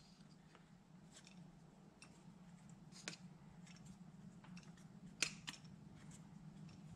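Faint light clicks and taps of metal parts as the air-fuel screw is backed out by hand from a Suzuki LT185 carburetor, the sharpest click about five seconds in, over a faint steady low hum.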